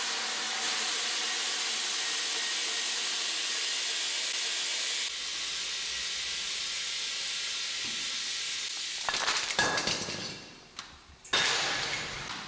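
A steady hiss for about nine seconds, then a short burst of clattering knocks and, about a second later, one loud crash that fades away: the workings of a scrap-metal mechanical chain-reaction contraption.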